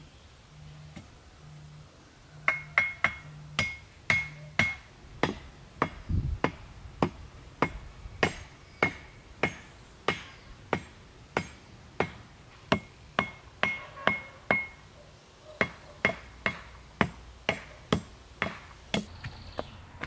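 Sharp knocks repeating in a steady rhythm, about one every 0.6 seconds. They start a couple of seconds in and stop shortly before the end. Some knocks carry a brief high ringing note.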